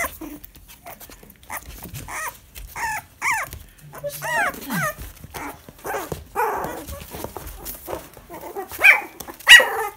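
Young puppies whimpering and yipping in short, high-pitched calls that rise and fall, a dozen or so scattered through, with two louder yelps near the end.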